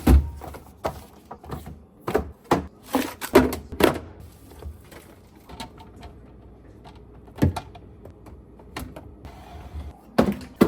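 Refrigerator being restocked: irregular knocks and clunks of containers and items set down on the shelves and drawers, busiest in the first four seconds, then sparser.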